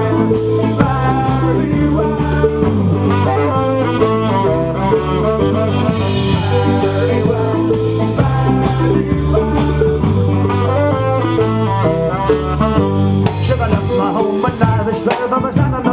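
Live band playing an upbeat instrumental passage: drum kit and electric bass driving a steady beat under an acoustic guitar and a quick lead melody. About three-quarters of the way through the melody thins out and the drum hits come forward.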